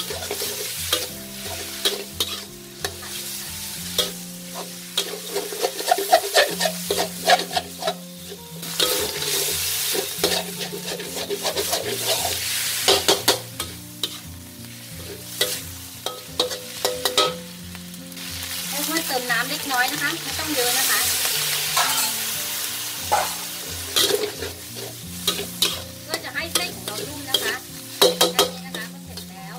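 Metal spatula scraping and knocking against a metal wok while wide rice noodles and chicken stir-fry and sizzle. The sizzle swells for a few seconds a little past the middle.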